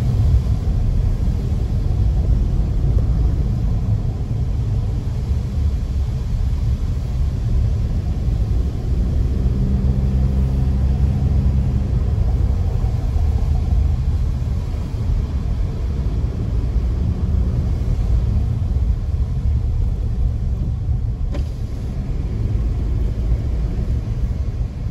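Car driving along a road: a steady low rumble of engine and road noise. An engine hum comes through more clearly for a couple of seconds about ten seconds in.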